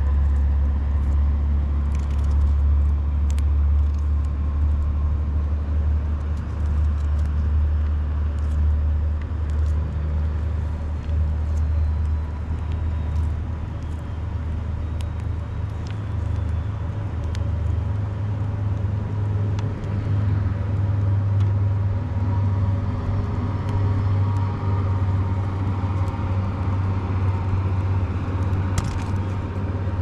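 Wood fire crackling under cooking pots, with sharp clicks now and then, over a steady low rumble that dips a little midway.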